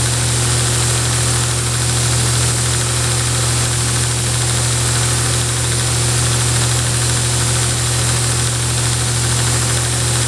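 Grizzly knife buffer/belt grinder running with a steady, even motor hum.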